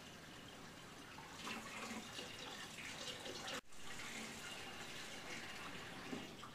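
Water running from a kitchen faucet into the sink. It comes on about a second in, and the sound cuts out for an instant about halfway through.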